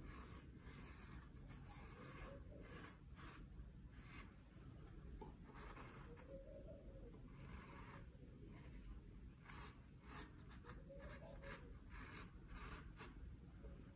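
Faint, repeated short strokes of a marker pen drawing lines across the mesh net of a wig cap.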